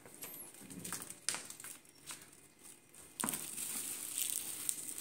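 Plastic bag rustling and crinkling as a small child handles it, starting about three seconds in after a few faint knocks.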